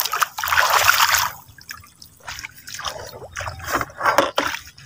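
Water splashing for about the first second, then smaller splashes, drips and trickling.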